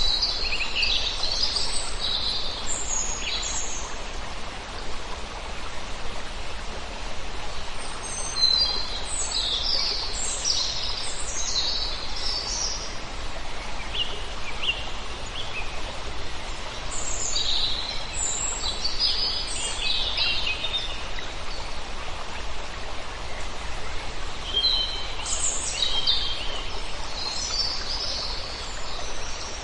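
Songbirds chirping and singing in bursts of quick high notes, over the steady rush of flowing water.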